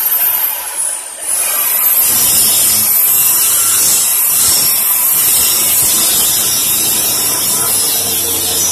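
Handheld electric angle grinder running against a welded steel window grill, grinding off the edges. About a second in, its high whine drops briefly and climbs back up, then it grinds steadily on the metal.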